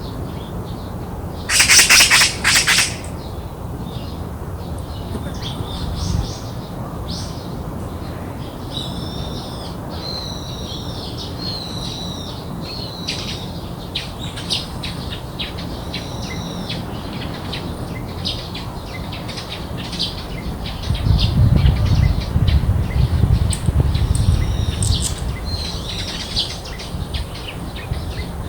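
Garden birds calling and chirping, with a loud burst of rapid call notes about two seconds in and repeated high chirped phrases after it. A low rumble comes up a little past twenty seconds.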